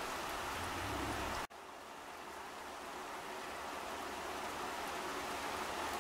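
Steady rain falling on leaves and garden foliage, an even hiss with a few faint drip ticks. It cuts out abruptly about a second and a half in, then comes back quieter and gradually swells again.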